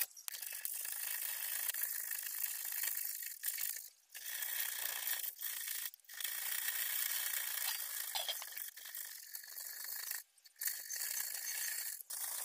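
A thin metal rod scraping and rubbing inside the keyhole of a brass padlock body: a steady scratchy rasp, broken off briefly three or four times.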